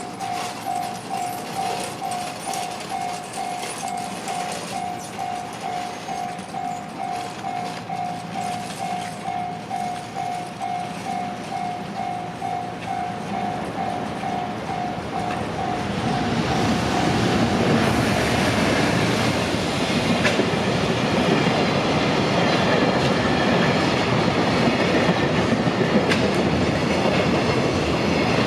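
Japanese level-crossing alarm bell ringing in an even, repeated ding. About 17 seconds in, a freight train hauled by an EF210 electric locomotive reaches the crossing and runs past, its wheels clattering over the rails and covering the bell.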